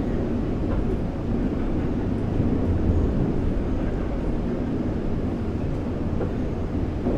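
Interior running noise of an 81-740/741 «Rusich» metro train travelling between stations: a steady low rumble of wheels on rail, with a few faint clicks.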